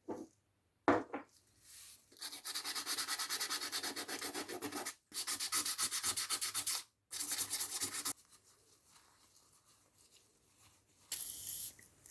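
Rapid back-and-forth hand abrading strokes, sanding or filing the figure's rough surface, about six or seven strokes a second in three runs that cut off abruptly. A sharp knock comes about a second in.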